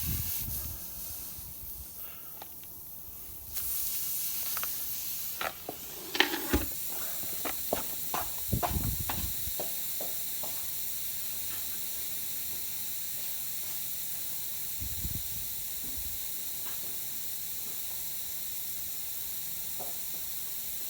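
Air hissing steadily out of a puncture in a tyre that has been reamed through and not yet plugged: the tyre is losing pressure. Clicks and knocks of tool handling come between about 5 and 10 seconds in.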